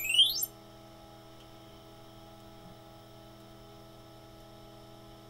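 TRS-80 Model 4P's built-in speaker finishing the diagnostic disk's sound test: a rising tone sweep that cuts off suddenly about half a second in. A steady low hum from the running computer follows.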